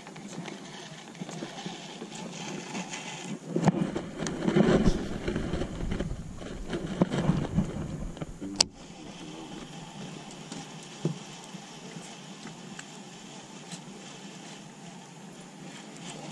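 Low rumbling buffeting on the camera's microphone for about five seconds, ending in one sharp click, over a steady outdoor hiss.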